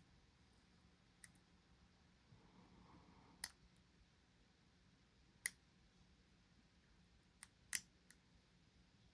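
Faint, sharp, irregularly spaced metallic clicks, about six in all, from a steel pick working the pins of a dimple lock under a tension wrench.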